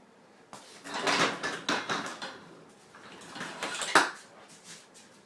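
Metal tools and parts being handled and set down on a workbench: an irregular clatter of knocks and rattles with a sharp click about four seconds in.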